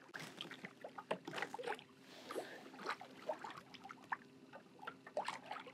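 Water lapping and trickling in small irregular splashes against a plastic kayak hull moving under power, over a faint steady hum from the kayak's electric trolling motor.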